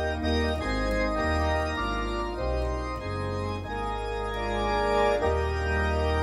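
Lowrey Sensation electronic organ on its church organ preset, playing slow held chords over deep bass notes that change every second or so.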